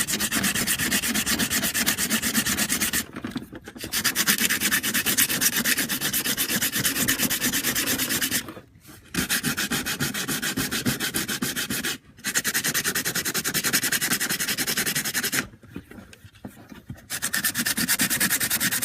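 Coarse sandpaper sanding down the rough weld points on a plastic hood vent plate, to roughen and flatten it so the adhesive bonds. The sanding runs in long stretches with a few short pauses.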